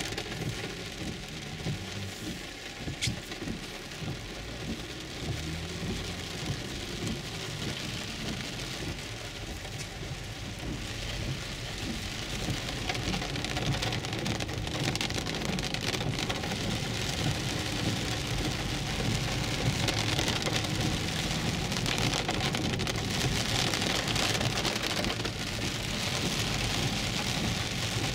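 Heavy rain pelting the roof and windshield of a 2011 Infiniti EX35, heard from inside the cabin, over the steady low noise of tyres on a wet road. The rain grows louder over the second half.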